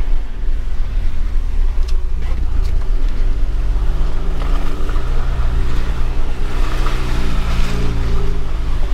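A 2021 Jeep Wrangler Rubicon's engine running as the Jeep drives, its note rising and falling several times as the revs change, over a steady low rumble.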